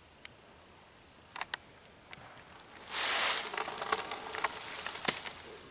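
Dry leaves crunching and rustling underfoot, starting loud and crackly about three seconds in as a disc golfer makes his throw, then thinning into scattered crackles. A few isolated clicks come before it, and there is one sharp knock about five seconds in.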